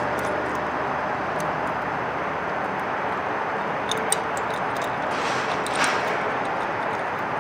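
Steady outdoor background noise, with a few faint small clicks about four seconds in and again near six seconds as bolt hardware on a camera mounting bracket is handled and finger-tightened.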